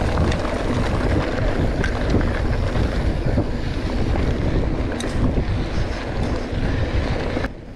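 Wind buffeting the action camera's microphone over the rumble of mountain bike tyres rolling on a dirt trail at speed, with a few small rattles and clicks from the bike. It cuts off sharply near the end.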